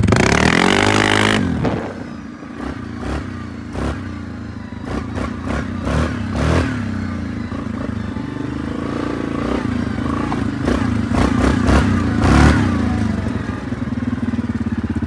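Yamaha Grizzly 700 ATV's single-cylinder engine breathing through a custom aftermarket exhaust tip: it revs hard for the first second or so, then runs at low throttle with short pops and crackles, blips again briefly near the end, and settles to an idle.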